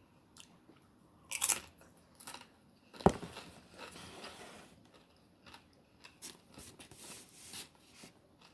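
Close-miked eating: a person biting and chewing food with crunching, in scattered short bursts. A sharp click about three seconds in is the loudest sound.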